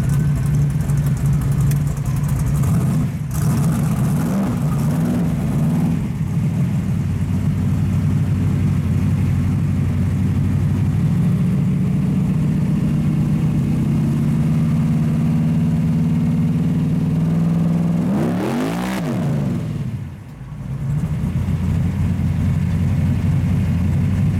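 Loud, steady rumble of a pro street Chevy Nova's engine heard from inside the cabin, pulling through traffic and cruising. About eighteen seconds in the pitch rises and falls briefly, followed by a short drop in level as the throttle eases.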